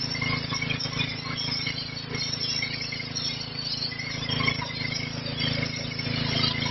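Petrol-engined high-pressure washer running steadily, its engine note under the constant hiss of the water jet spraying onto wet paving tiles.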